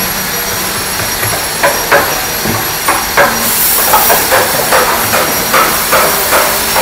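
Hand chisel scraping and paring wood in short, repeated strokes, becoming a regular two to three strokes a second from about four seconds in, over a steady workshop hiss.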